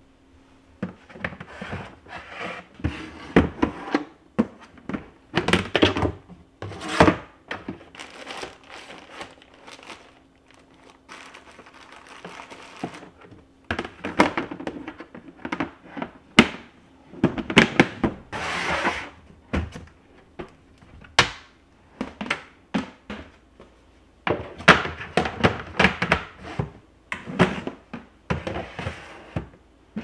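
White plastic storage bins and their lids being handled on a cabinet shelf: irregular knocks and thunks of plastic set down and moved, with a few longer noises in between.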